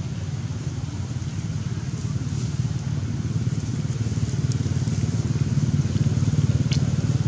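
A steady low rumble that grows slowly louder, with a couple of faint clicks.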